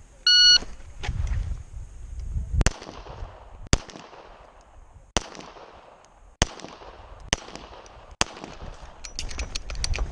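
Shot timer beep starting the run, followed by six pistol shots from a Walther Q5 SF, spaced about a second apart, with a cluster of lighter clicks near the end.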